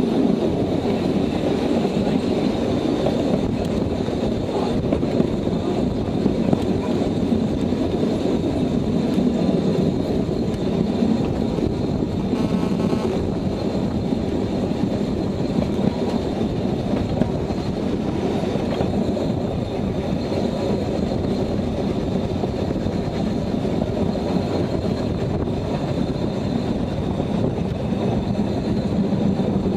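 Zittau narrow-gauge steam train running, heard from an open passenger car: a steady rumble of the wagons on the track that holds on without a break.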